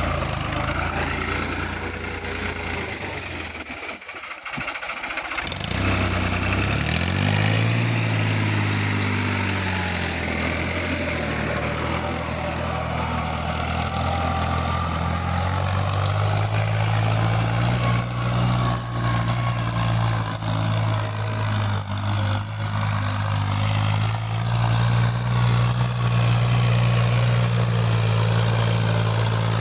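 Tractor's diesel engine running steadily. About six seconds in its note rises and settles, and from then on it holds an even pitch.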